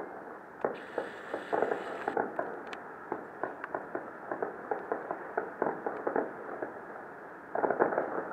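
Distant aerial fireworks bursting: a rapid, irregular run of bangs and pops, several a second, growing denser near the end.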